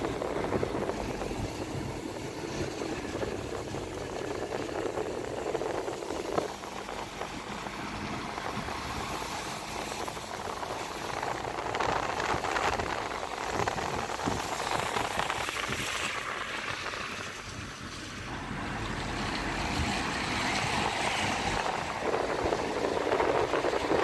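Road and wind noise of a moving car: a steady rush over a low rumble that swells a little near the end.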